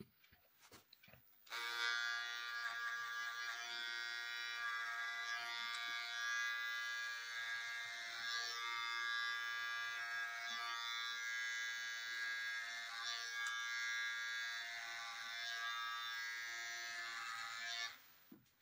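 Cordless hair trimmer buzzing steadily as it cuts the nape hair over a comb to blend a fade. It switches on about a second and a half in and cuts off just before the end.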